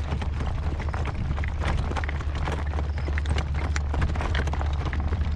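A horse's hooves clip-clopping at a steady pace, with a steady low rumble of wind on the microphone.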